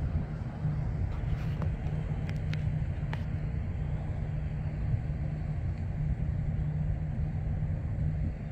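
Steady low rumble with a few faint high ticks between about one and three seconds in.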